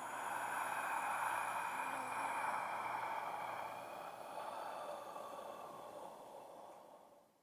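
Creature sound effect for a gas-exhaling zombie: a long, noisy, breath-like hiss that slowly fades away toward the end.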